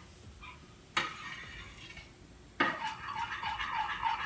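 A utensil stirring thick cream and condensed milk in a bowl, scraping in an even rhythm of about three to four strokes a second. There is a single knock about a second in, then a pause, and the stirring starts again sharply about two and a half seconds in.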